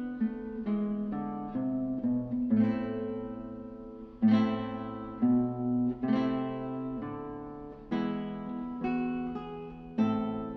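Background music: acoustic guitar playing, its plucked notes and chords starting sharply and ringing out before the next.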